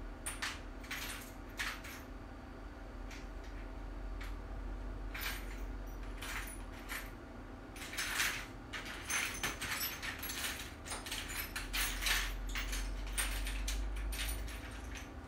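Irregular light clicks, clinks and rustles of small hard objects being handled, coming more often in the second half, with the loudest clinks about eight and twelve seconds in.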